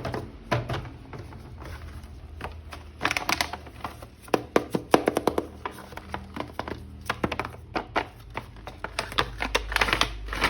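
Hands handling and opening plastic toy packaging: a string of sharp clicks, knocks and crinkles, thickest in clusters a few seconds apart.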